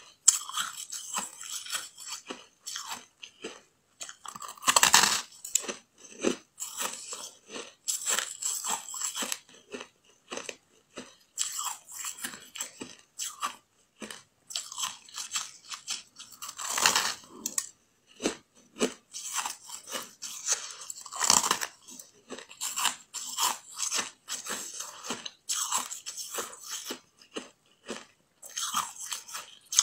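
Close-up biting and chewing of a green ball of packed ice, frozen from compacted ice with no water added: a dense run of crisp crunches, with louder bites about five, seventeen and twenty-one seconds in.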